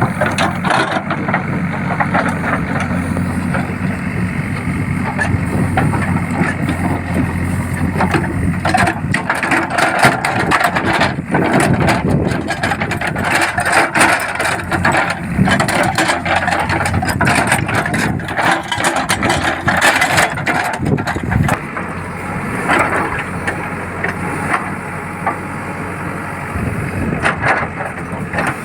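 JCB backhoe loader's diesel engine running under load, with repeated knocks and clatter of the bucket working soil and debris, busiest through the middle.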